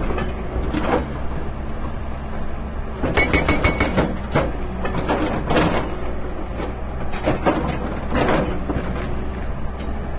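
Excavator-mounted hydraulic rock breaker hammering boulders in bursts of rapid blows, several bursts a few seconds apart, over the steady running of the excavator's engine.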